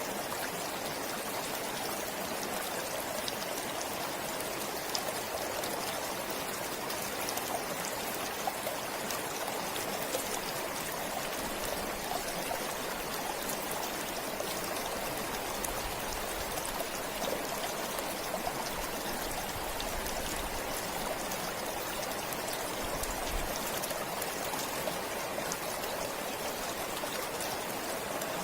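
Forest stream flowing and trickling: a steady rush of running water with small splashing drops throughout.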